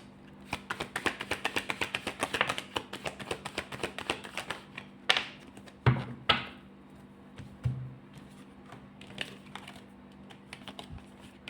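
A tarot deck being shuffled by hand: a quick, dense run of light card clicks for the first five seconds or so, a few louder snaps around the middle, then only scattered clicks.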